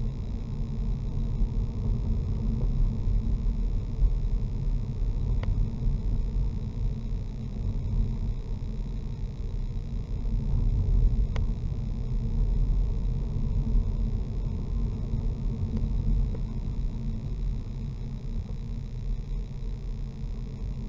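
Steady low rumble of a car driving slowly, engine and tyre noise heard from inside the cabin, with a couple of faint clicks.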